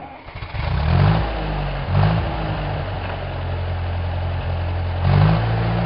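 Engine of farm machinery running under load, surging up in pitch and loudness three times: about a second in, at two seconds, and near the end.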